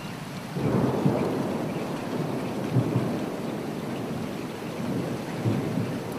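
Steady rain with thunder rumbling in about half a second in, rising and falling in waves.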